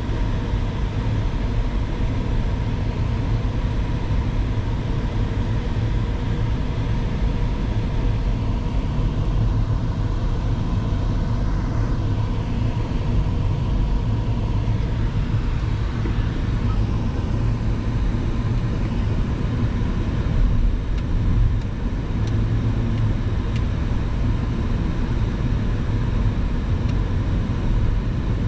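Car driving on the highway, heard from inside the cabin: a steady low engine and road rumble with a faint steady whine.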